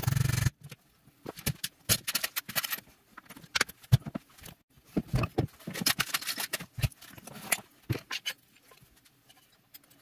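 Metal and wooden hand tools clattering and knocking as they are picked up and set down on a workbench, in irregular knocks and clicks. It opens with about half a second of loud scraping and tails off into quiet near the end.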